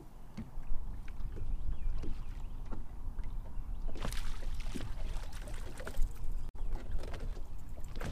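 Water lapping against the hull of a bass boat under a steady low rumble, with scattered light knocks and clicks from fishing tackle being handled.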